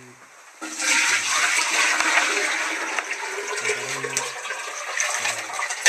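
Water pouring from a plastic jerrycan into a container: a steady gushing rush that starts about half a second in.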